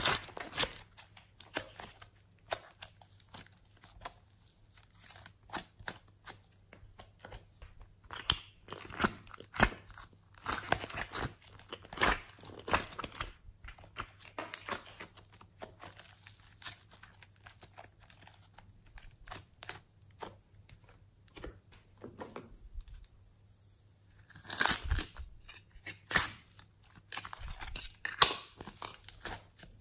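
Soft modelling clay being squeezed, stretched and torn apart by hand, giving irregular sticky crackles, clicks and tearing sounds. The sounds come in clusters, busiest about a third of the way in and again near the end, with quieter handling between.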